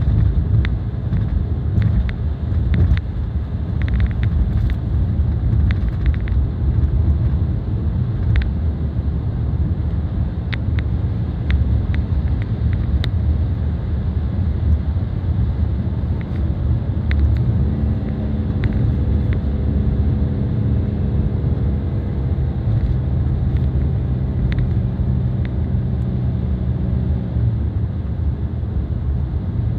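Cabin noise of a 2003 BMW 318i (E46) on the move: a steady low road and tyre rumble with its four-cylinder engine underneath, dotted with small clicks and rattles. From a little past halfway, a steady engine hum stands out over the rumble for about ten seconds, then fades back into it.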